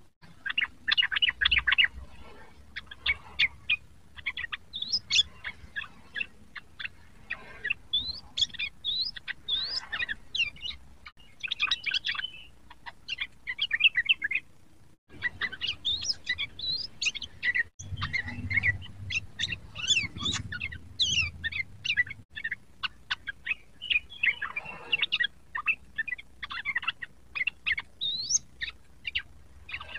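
Yellow-vented bulbul (trucukan) song: rapid, continuous runs of short chirping notes and quick up-and-down whistled slides, with a few brief breaks.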